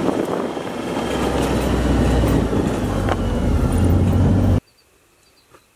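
Kawasaki Mule utility vehicle driving over rough grassy ground: a low engine hum under the noisy rattle and jolting of the vehicle. It stops abruptly about four and a half seconds in, leaving near quiet with a few faint high chirps.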